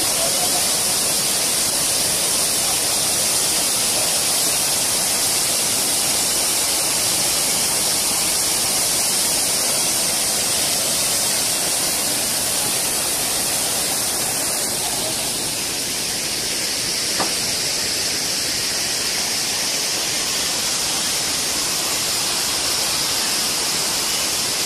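Waterfall rushing: a steady hiss of falling water.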